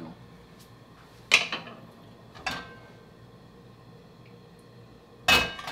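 Metal cooking utensil clanking against a pan, three separate knocks with a short metallic ring, the loudest cluster near the end.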